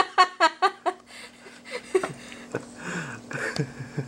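A quick run of laughter in the first second, then soft baby whimpers and breathy fussing sounds, over a faint steady hum.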